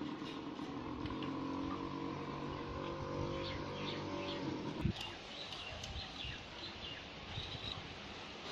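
Small birds chirping, short high calls that are clearest in the second half, over a steady engine-like hum that stops with a click about five seconds in.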